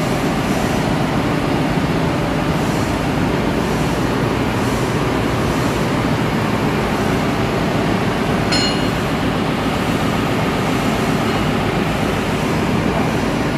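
Steady loud drone of running ship's engine-room machinery. About eight and a half seconds in comes one short metallic ping.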